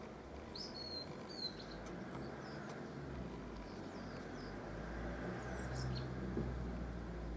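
Low, distant rumble of an Airbus H175 helicopter flying overhead, growing a little louder in the second half. Small birds chirp briefly and high-pitched near the start and again around six seconds in.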